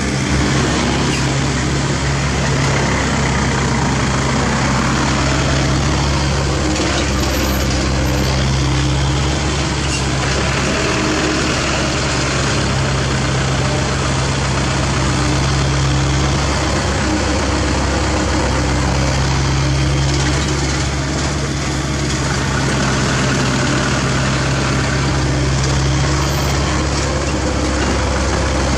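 Diesel engine of a dump truck running steadily close by, a constant low hum with small shifts in pitch.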